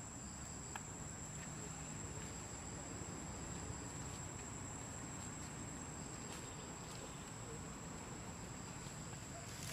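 Steady high-pitched insect drone, one unbroken tone over a soft background hiss.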